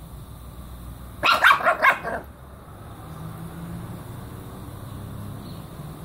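Small Pekingese dog barking, a quick run of several barks lasting about a second, starting a little over a second in.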